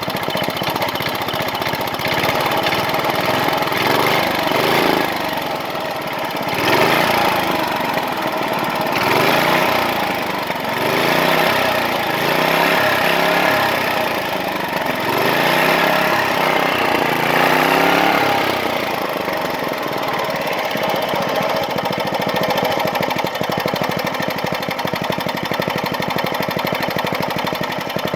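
Briggs & Stratton small engine running, revved up and down several times through the first two-thirds, then settling to a steady run.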